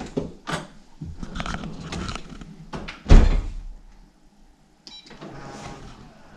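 Dishes and racks clattering in a pull-out drawer dishwasher, with several clicks and knocks, then a solid thump about three seconds in as the drawer is pushed shut. A short high tone follows near five seconds.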